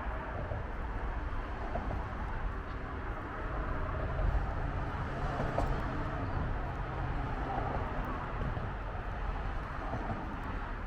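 Steady low rumble of distant traffic or a passing train, with no clear bird calls over it.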